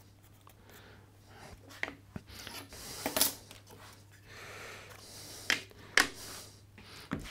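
Light wooden knocks and rubbing as small box frame pieces and panels are picked up, slid and set down on a wooden workbench, with a handful of sharp taps spread through.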